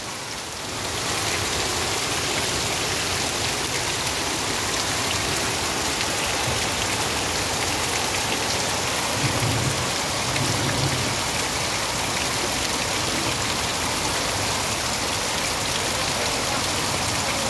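Heavy rain pouring steadily onto standing floodwater and hard surfaces.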